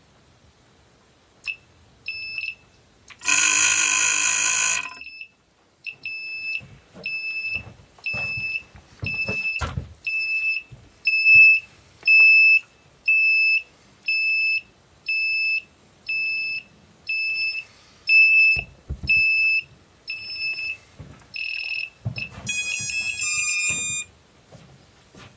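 FPV quadcopter's lost-model beeper sounding after a crash: one longer, louder, harsh blast near the start, then short high-pitched beeps repeating about every three quarters of a second. A quick jumble of mixed tones comes near the end, with a few soft low thumps along the way.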